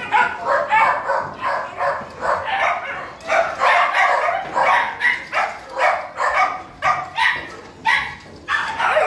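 Dogs in a shelter kennel barking over and over, the barks overlapping at a few a second with no break.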